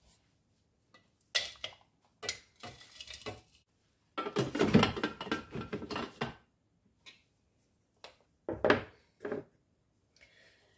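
Clatter and scraping of the Thermomix's stainless steel mixing bowl as it is emptied of chopped spinach with a spatula and set back on the machine. It comes as a few separate knocks and scrapes, with a longer run of clatter about four to six seconds in.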